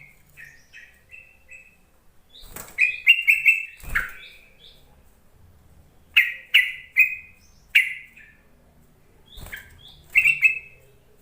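Yellow-vented bulbul (trucuk) calling in short bubbly phrases of chirping notes, three bursts with pauses between.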